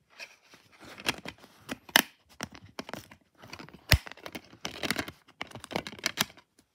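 A DVD disc being handled in its clear plastic case: irregular rustling and scraping of plastic with many sharp clicks. The loudest clicks come about two and four seconds in.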